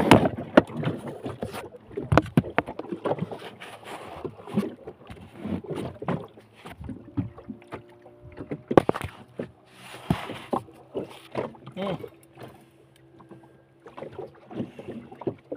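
Irregular knocks and bumps from a phone being handled and set down against tackle on a small fishing boat during a fight with a hooked fish. A steady low hum comes in about seven seconds in and fades out about five seconds later.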